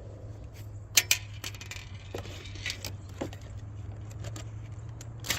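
Metallic clicks and clinks of a Chiappa over-under .22/.410 combination gun being loaded: the action worked and a round put in the chamber. Several sharp clicks come irregularly over a steady low hum, the loudest about a second in.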